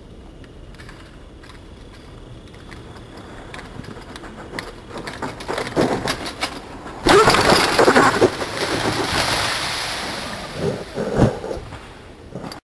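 Mountain bike rolling down a grassy track, growing louder as it comes close, with scattered clicks and knocks. About halfway there is a sudden loud rustling crash through the grass that slowly fades, with a sharp thump near the end.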